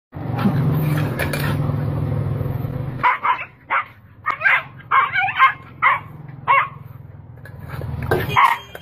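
A dog growling low for about three seconds, then barking in about a dozen short, sharp barks, with another growl near the end.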